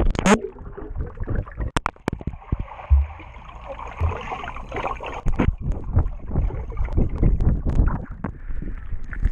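A GoPro action camera splashes into a swimming pool and sinks, heard from the camera's own microphone. A sharp splash comes right at the start, then muffled underwater water noise with a couple of low thumps. From about halfway on come repeated knocks and sloshing as a hand grabs the camera.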